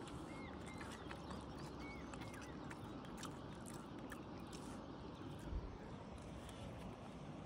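Faint outdoor ambience with a few short bird chirps in the first two seconds and scattered light ticks, and a soft low thump about five and a half seconds in.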